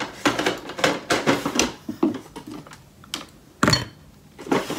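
Clicks and light knocks of small makeup items being moved about while someone rummages for an eyeshadow primer, with one louder knock about three and a half seconds in.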